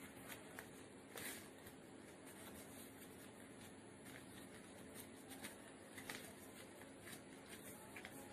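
Faint, scattered rustles and crinkles of a sheet of origami paper being folded and creased by hand, over a steady low hiss.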